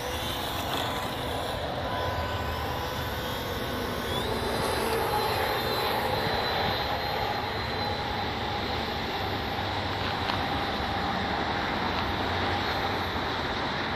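HobbyZone Champ RC plane's small electric motor and propeller whining as the plane takes off and climbs away, the pitch shifting as it goes. Heavy wind buffets the microphone throughout.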